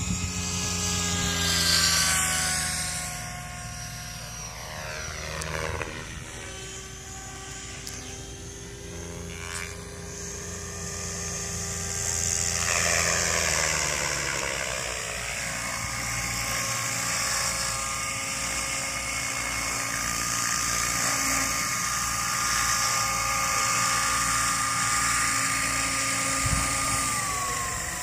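Radio-controlled model helicopter's motor and rotor whine, sliding down in pitch each time it sweeps past, three times, then holding a steadier pitch and dropping near the end.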